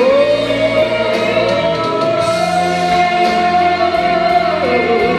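Woman singing one long held note over instrumental accompaniment; the note slides up at the start and drops away near the end.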